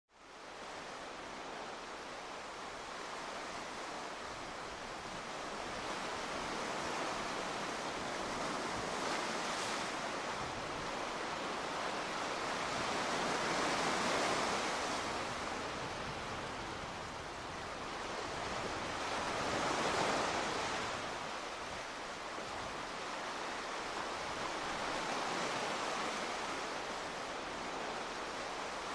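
Sea waves washing onto the shore, a steady rush that swells into a louder surge every five or six seconds.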